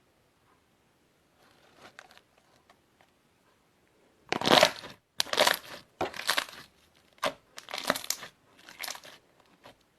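Slime being squeezed and pressed by hand: a few faint sounds at first, then from about four seconds in a run of about seven loud squishing strokes, roughly one every three-quarters of a second.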